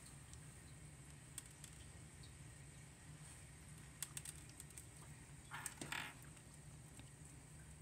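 Slime being played with by hand: a few faint soft clicks, then a short crackly squish about five and a half seconds in.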